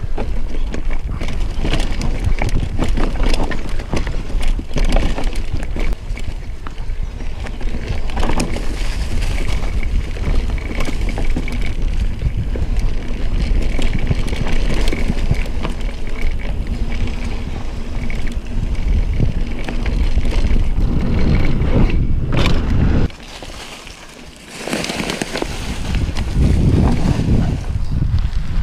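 Mountain bike ridden over a rough, stony trail, with constant rattling and knocking from the bike and wind rushing on the microphone. It drops away briefly for about a second and a half late on.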